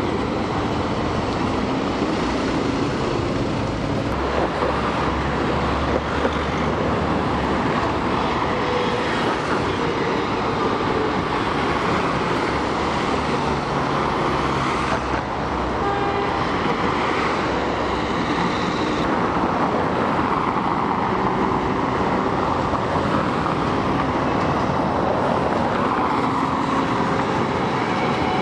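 Steady city street traffic noise: cars, buses and Sirio trams going by.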